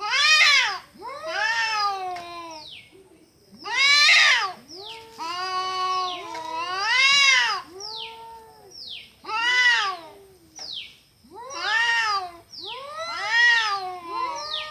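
Domestic cat meowing over and over: long, drawn-out meows that rise and fall in pitch, about one every one to two seconds, with short, high, falling squeaks in between.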